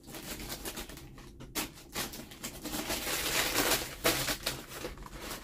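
Thin tissue paper rustling and crinkling as hands dig through it inside a cardboard sneaker box, with small crackles throughout and a louder stretch of rustling past the middle.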